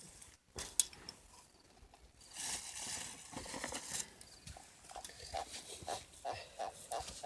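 Bullhead catfish held out of the water, making a quick series of short squeaky croaks, about three a second, starting about halfway through; a brief rustle of handling comes before them.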